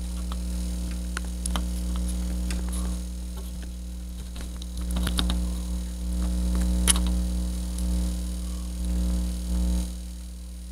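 Steady low electrical mains hum that swells and eases a few times and drops a little near the end, with scattered small clicks and knocks of handling and one sharper click about seven seconds in.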